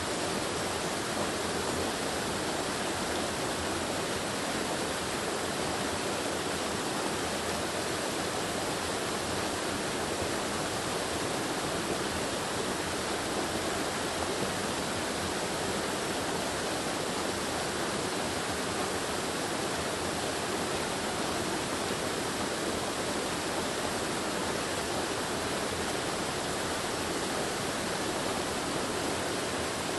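Mountain river water flowing over small waterfalls: a steady, even rush of water.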